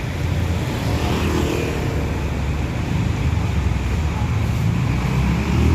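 Heavy diesel engine of a large intercity bus running and pulling past, a steady low rumble.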